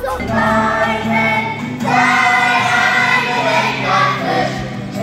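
A group of children singing a song together over instrumental accompaniment, with a new phrase starting about two seconds in.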